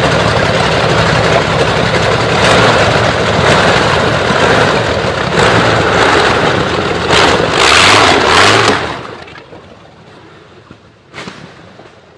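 Brutus's BMW V12 aircraft engine, running loudly and unevenly as the car idles and pulls away. It revs up to its loudest about seven to nine seconds in, then the sound falls away suddenly, leaving only a brief blip near eleven seconds.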